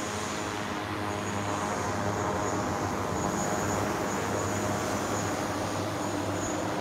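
Propellers of a multirotor personal flying platform carrying a standing rider in flight, a steady hum of many tones.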